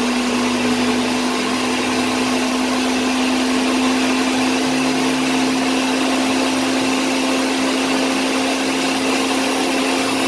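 Ninja countertop blender running continuously at speed, pureeing boiled sorrel flowers with some of their cooking liquid: a loud, steady motor whine whose hum creeps slightly up in pitch.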